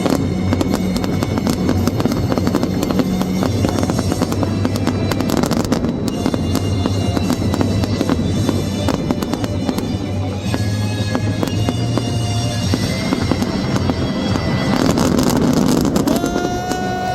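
Fireworks popping and crackling in quick, irregular succession over loud music. A single held tone sounds near the end.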